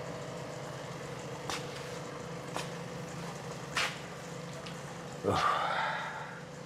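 A steady low hum of room ambience with a few faint, short clicks, the clearest about four seconds in; a man says one word a little after five seconds.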